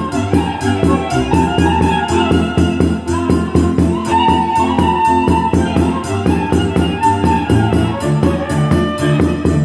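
Live folk dance music: a violin plays the melody over a steady beat on a large bass drum struck with a beater, with a low bass accompaniment.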